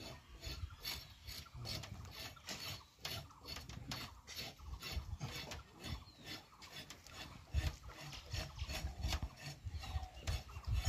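Large knife blade scraped over a pig carcass's skin in quick repeated rasping strokes.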